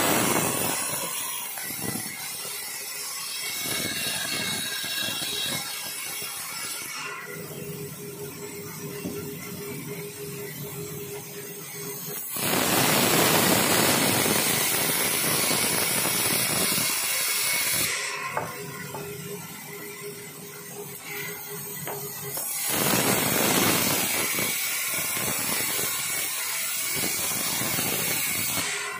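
Sawmill band saw cutting lengthwise through a rubberwood log, loud and harsh while the blade is in the wood. The cutting noise comes in three spells, one at the start, one in the middle and one near the end. Between them the saw runs more quietly with a steady hum and a few clicks.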